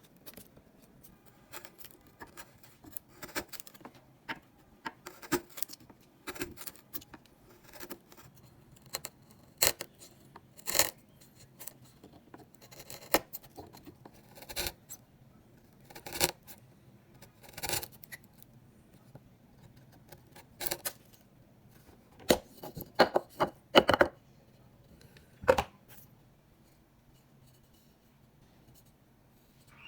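Hand tools working wood: a series of irregular sharp taps, knocks and short scrapes, thickest a little before the end, then stopping.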